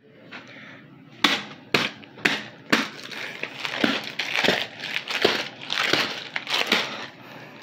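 Rough handling of a white plastic mailer package: four sharp smacks about half a second apart, then a run of crinkling, rustling bursts as it is shaken and crushed about.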